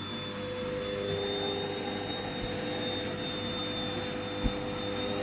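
Hoover washing machine in its final spin: the drum motor whines at a steady pitch over a rushing hum, with a single knock near the end.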